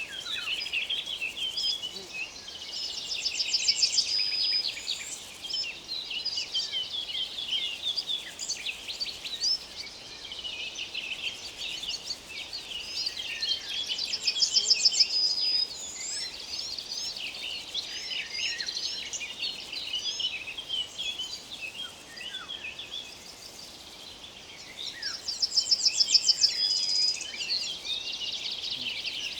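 A chorus of songbirds chirping and singing. One bird repeats a fast trill that ends in a high held note three times, about every eleven seconds.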